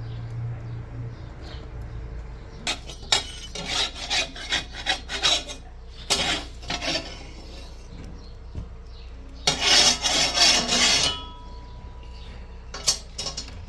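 Metal spatula scraping across a domed iron saj griddle while flatbread is baked on it: a string of short rasping strokes, then a longer burst of scraping about ten seconds in, and a couple more strokes near the end.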